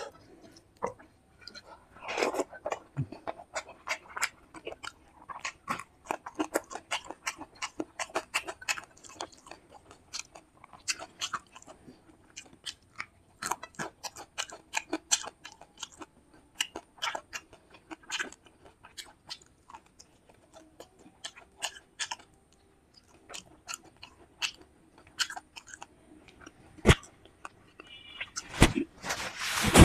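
Close-miked eating sounds of a fish curry, fried fish and rice meal: irregular wet chewing smacks and crunchy bites. There is a brief quieter spell about two-thirds of the way in, and a few louder sharp clicks near the end.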